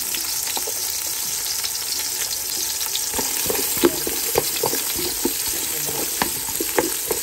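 Chopped onion sizzling as it sautés in hot oil in a metal pot. A wooden spatula stirs it from about three seconds in, scraping and knocking against the pot.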